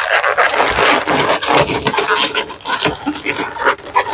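Inflated latex modelling balloons rubbing and squeaking against each other as balloon eyes are twisted and pressed into place on a balloon head, starting suddenly.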